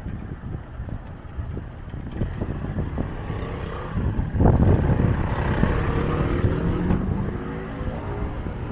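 A road vehicle passing on the street, loudest a little past the middle, its engine note then rising steadily as it goes on.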